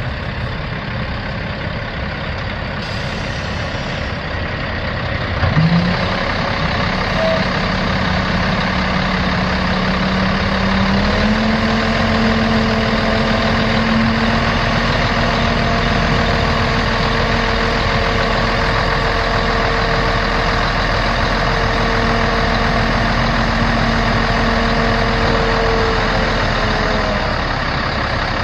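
Kenworth T800 dump truck's Caterpillar C10 diesel running steadily. About five seconds in, a steady whine comes in, steps up a little in pitch around eleven seconds, and holds until it fades out near the end.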